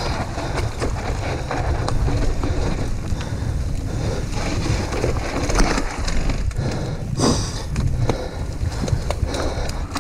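Mountain bike riding fast down a dirt singletrack: tyres running over the dirt and the bike rattling over bumps in a steady stream of clicks and knocks, with wind rumbling on the action camera's microphone.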